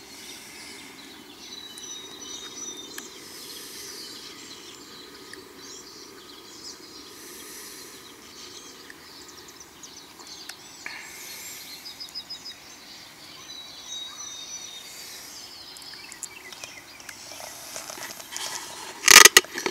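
Steady outdoor background noise with a few faint, short high bird chirps, then a brief loud clatter near the end.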